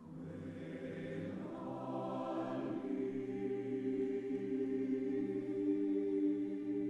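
Mixed choir singing. The voices enter together after a brief hush, swell, and about three seconds in settle into a sustained held chord that slowly grows louder.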